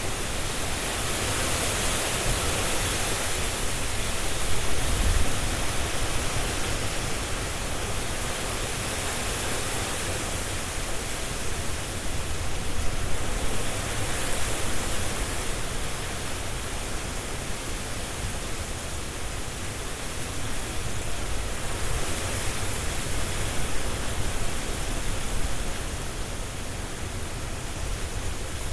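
Strong wind rushing through trees with leaves rustling: a steady hiss-like rush that swells and eases in slow gusts.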